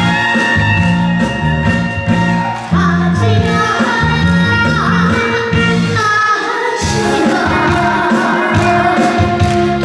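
Korean trot song with a backing band and a steady beat; a boy's high singing voice comes in about three seconds in.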